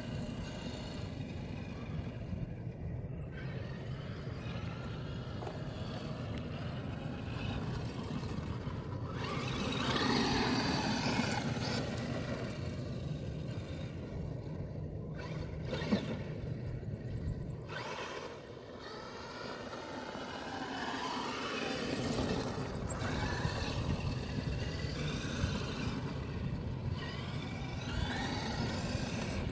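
Traxxas X-Maxx electric RC monster truck's brushless motor whining, rising and falling in pitch as it speeds up and slows down, over a steady low rumble. A single sharp click comes about halfway through.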